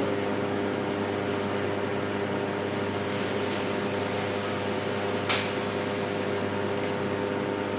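Microwave oven running while heating a glass of water: a steady electrical hum over a fan-like rush. A single brief click sounds about five seconds in.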